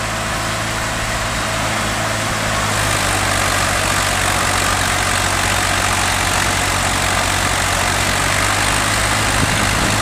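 Swaraj 855 and Belarus tractor engines running together, steady at first, then revving up and louder from about three seconds in as the tractors strain against each other in a tug-of-war pull.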